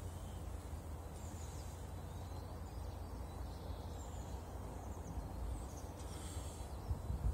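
Outdoor background: a steady low rumble with a few faint, short bird chirps over it.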